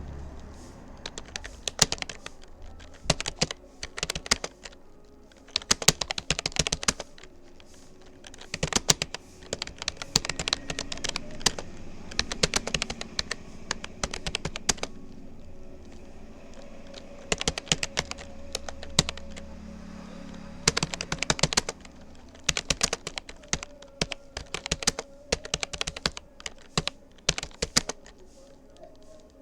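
Touch-typing on a Rapoo computer keyboard: quick runs of key clicks in bursts, broken by short pauses.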